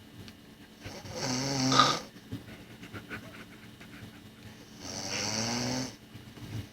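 A person snoring: two long, pitched snores about four seconds apart, the first growing louder toward its end.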